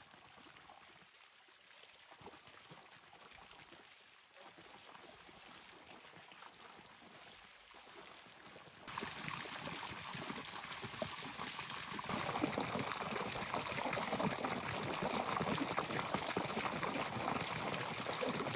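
Flowing water, like a stream running over rocks: faint at first, then suddenly louder about nine seconds in and louder again around twelve seconds.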